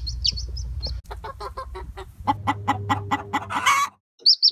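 Chickens: a baby chick peeping, then a fast run of clucks, about six a second, ending in a louder squawk just before the four-second mark. The chick peeps again near the end.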